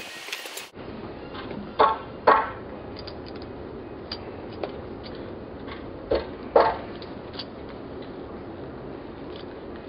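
Clicks and clacks of a VW quarter-light window frame and its small parts being handled while a seal is worked in, over a steady hiss. There are two pairs of sharper knocks, one about two seconds in and another about six seconds in, with lighter ticks between.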